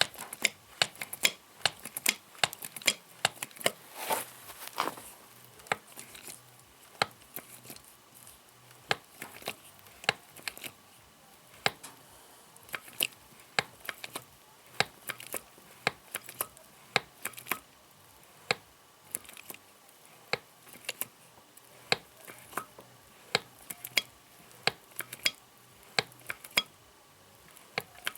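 Two-stage hydraulic bottle jack being hand-pumped, its lever and ram giving a sharp metallic click with each stroke, about one to two a second and uneven, as the jack extends under test after its rubber seals were replaced.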